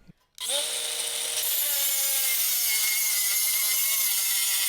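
Power saw cutting through a length of aluminium bar: the motor starts about half a second in and runs as a steady high whine with the hiss of the blade through metal, its pitch dipping slightly as the blade bites.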